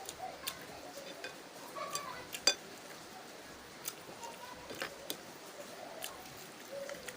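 Cutlery clinking and scraping against a bowl of instant noodles being eaten, in scattered short clicks, the sharpest about two and a half seconds in.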